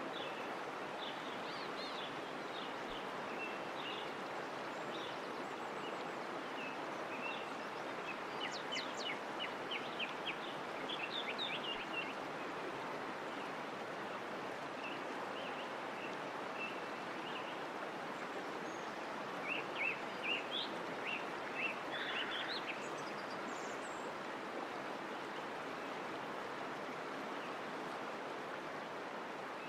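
Steady rush of running water with small birds chirping over it. The chirping comes in quick runs, busiest about a third of the way in and again around two thirds in.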